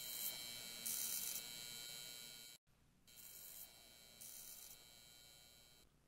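Electrical hum and buzz of a neon sign, with a brighter buzzing surge about every two seconds. It cuts off suddenly about two and a half seconds in, leaving a fainter steady hum.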